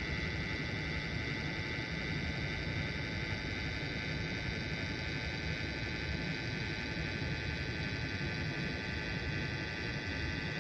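Steady background hum and hiss, with a low rumble and a thin, constant high-pitched whine that never changes; there are no separate knocks or other events.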